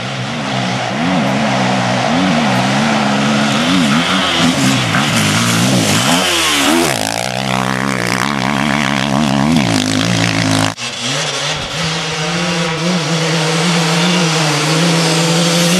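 Off-road dirt bike engines revving hard, the pitch climbing and dropping again and again with throttle and gear changes. About eleven seconds in the sound cuts suddenly to another bike running at a steadier, more even note.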